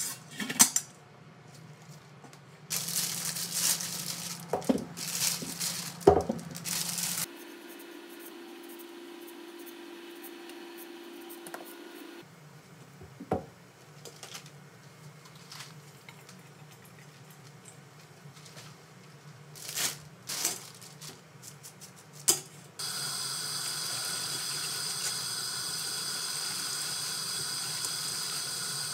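Kitchen work sounds with scattered clinks and knocks of utensils and metal bowls. Near the end tap water runs steadily into the sink as bean sprouts are rinsed in a metal colander.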